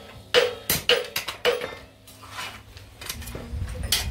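Hand hammer striking a hot steel knife blade on a small anvil, each blow a sharp metallic clang with a short ring. About five quick blows in the first second and a half, then a pause and a few lighter strikes near the end.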